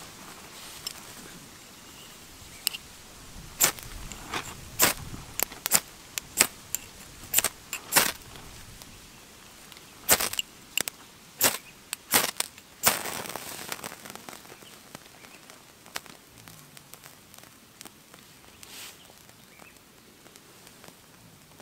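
Ferrocerium rod struck with a metal scraper: about fifteen quick, sharp scrapes in two runs, the last one longer, throwing sparks onto a water-soaked fire plug that is slow to catch.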